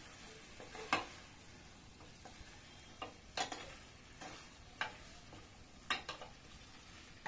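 Wooden spatula stirring chunks of elephant foot yam in a thick, nearly dry masala in a nonstick pan, giving irregular soft scrapes and knocks against the pan over a faint sizzle as the last of the water cooks off.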